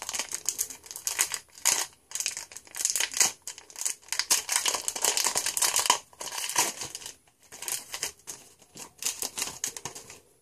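Foil wrapper of a trading card pack crinkling and tearing as it is opened by hand: a string of short, crackly rustles with brief pauses between them.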